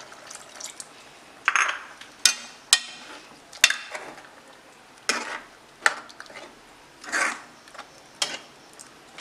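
Metal ladle stirring coconut milk into a thick masala curry in a metal kadai. Short wet scraping swishes alternate with sharp clinks of the ladle against the pan, about five clinks in all.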